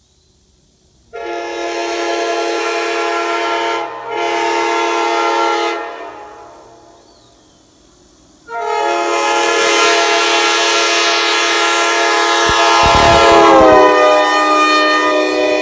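Nathan Airchime K5LA five-chime locomotive air horn blowing a loud chord: a blast about a second in with a brief break near four seconds, fading out, then a second long blast from about eight and a half seconds whose pitch sags slightly near the end, with a short low rumble under it.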